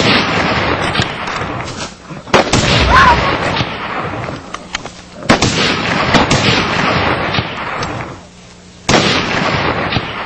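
Three loud gunshots roughly three seconds apart, each a sharp report trailing off in a long fading rumble.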